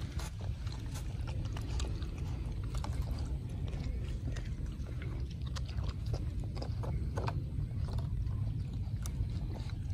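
A puppy eating wet, soupy food from a bowl: irregular wet smacking and clicking of its mouth, over a steady low rumble.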